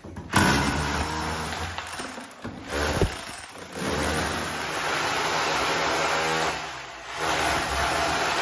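Electric rotary hammer in chisel mode running in long stretches, breaking up a tiled brick kitchen wall, with brief pauses twice. A sharp knock stands out about three seconds in.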